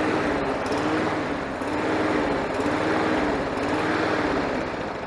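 Briggs & Stratton 550EX series four-stroke lawnmower engine surging: its speed rises and falls over and over, about once a second. The surging comes from an air filter blocked with dirt, dust and oil.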